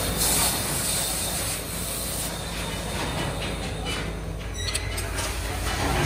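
Metal lathe running steadily with an aluminium fan cover disc spinning on it, a rubbing hiss over the motor hum, and a few light clicks near the end.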